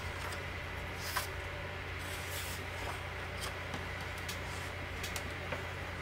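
Paper pages of a hardcover book being turned, then the book closed and turned over: a few soft paper slides and light taps over a steady low hum.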